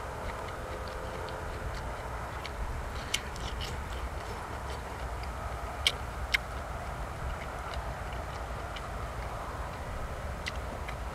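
Person eating, chewing with many small scattered clicks and three sharper clicks near the middle, over a steady low rumble.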